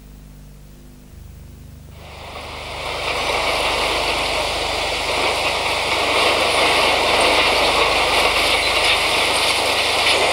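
Steel plant noise: after a faint low hum, a steady rushing noise swells in about two seconds in and holds, as red-hot material pours out inside the works.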